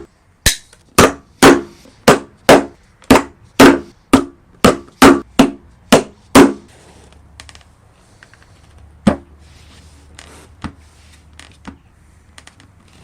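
A hammer striking, about thirteen evenly spaced blows at roughly two a second, with a short ring after each, stopping about six and a half seconds in. A few scattered light clicks and one sharper knock follow.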